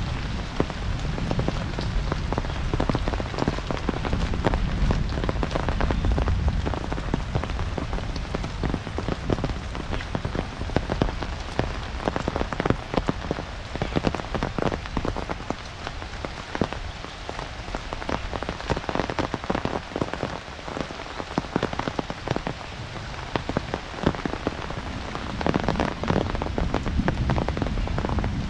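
Heavy monsoon rain falling steadily, with many separate drops striking close by. A low rumble sits under it for the first several seconds and comes back near the end.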